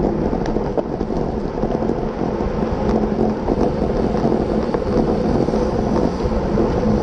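Steady rumble of wind buffeting a bike-mounted camera's microphone, with the tyre and road noise of a racing bicycle at speed and a few light clicks.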